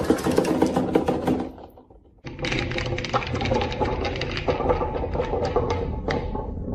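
Marbles rolling and clattering down a marble run track, a dense stream of rapid clicks. It fades out just under two seconds in and starts again suddenly about half a second later.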